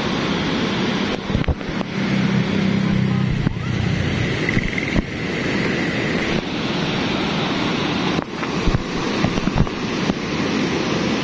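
Steady, loud rush of a volcanic lahar flood: muddy water and debris churning down a rocky gorge. A low hum runs under it for the first few seconds.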